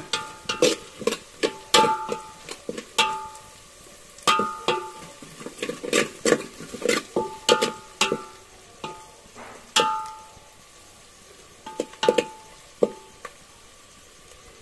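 A metal utensil knocking and clattering against a metal cooking pot, each knock ringing briefly. The knocks are irregular, two or three a second, and thin out after about ten seconds with a few more near the end.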